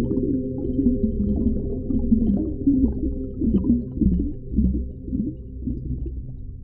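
Deep, heavily muffled underwater ambience: a steady low rumble with layered humming tones. Several short moans dip and rise in pitch about halfway through.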